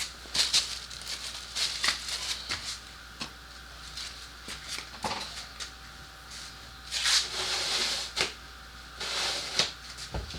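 Hand-handling sounds: scattered clicks and knocks with scraping and rustling, and two longer rustles about seven and nine seconds in.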